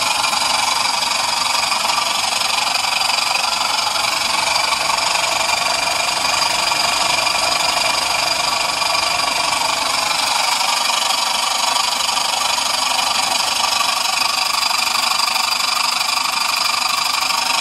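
Jensen 20G toy steam engine running steadily on live steam: a continuous hiss and fast chuffing of the exhaust steam as it belt-drives a small dynamo lighting a 3-volt bulb.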